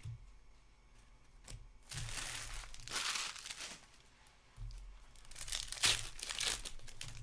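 Foil wrapper of a trading-card pack crinkling as it is handled and torn open, in two bouts of rustling, with the loudest crackle about six seconds in.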